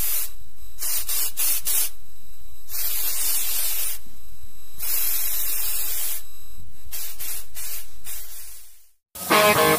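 Repeated bursts of loud spray hiss, cutting on and off over a low rumble and fading out near the end. Electric-guitar rock music kicks in just before the end.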